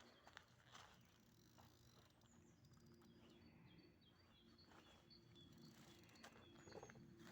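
Faint outdoor quiet with small birds chirping now and then, short high calls, most of them in the second half.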